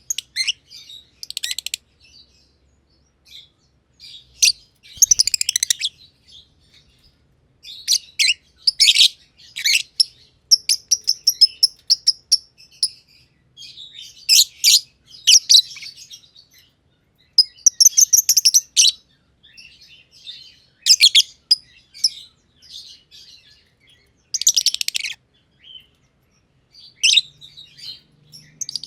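Masked lovebirds (Agapornis personatus) chirping in rapid bursts of shrill, high chirps with short pauses between them. A few calls are held as a steady high note.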